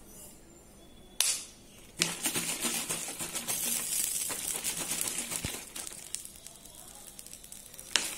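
Capped plastic bottle of vinegar and water being handled and shaken to mix in a tissue-wrapped packet of baking soda: a sharp click about a second in, then a loud, dense crackling rattle for several seconds that eases off, and another sharp click near the end.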